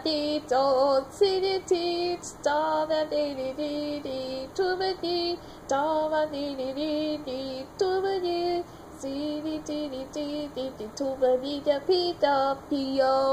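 A woman's high voice singing a melody in short phrases separated by brief pauses, with little else heard beneath it.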